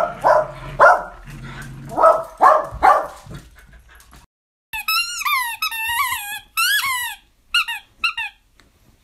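Dogs barking and growling in play while tugging a stuffed toy. After a short break, a string of about eight high squeaks comes from a squeaky toy as a Pembroke corgi chews it.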